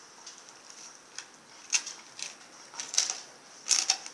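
Rottweiler gnawing and crunching on a raw, frozen whole turkey: irregular sharp crunches and clicks of teeth on frozen meat and bone, with the loudest cluster near the end.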